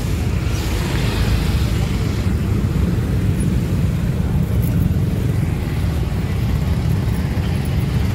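Busy street traffic: a steady low rumble of car and motorbike engines, with voices in the background.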